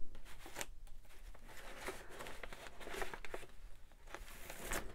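Sheets of paper rustling as they are handled and sorted by hand: a string of short, soft rustles and taps.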